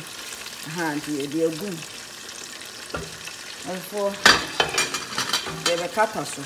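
Chicken drumsticks sizzling as they fry in oil in a pot, stirred and turned with a spatula. A click about three seconds in, then a louder burst of scraping and sizzling about four seconds in as the pieces are moved.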